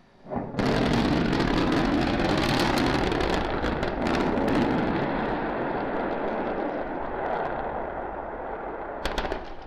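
SpaceX Starship prototype's rocket engines relighting for the landing flip and burn: a sudden loud start about half a second in, then a crackling rocket roar that slowly fades, with a few sharp cracks near the end.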